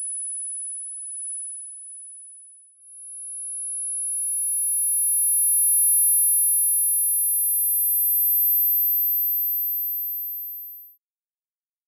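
Synthesised very high-pitched pure sine tones between about 10 and 13 kHz, made as tinnitus neuromodulation sound. One steady tone gives way to a slightly higher one about three seconds in; a still higher tone swells in and overlaps it, then the sound stops about a second before the end.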